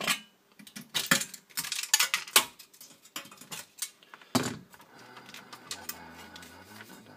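Metal clicks and clatter of needle-nose pliers prying and pulling at a sheet-steel hi-fi chassis, with a louder knock about four and a half seconds in. After that come quieter handling sounds.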